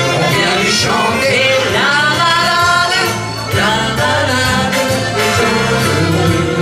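Live dance band playing: accordion and a woman singing over steady bass notes.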